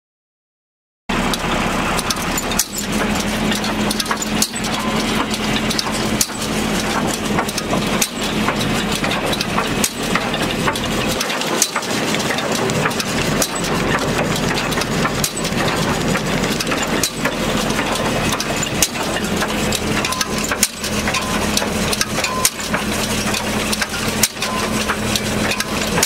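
A tractor engine running steadily while it drives a 1985 Hesston 4800 large square baler through the PTO, with a sharp knock about every two seconds as the baler cycles.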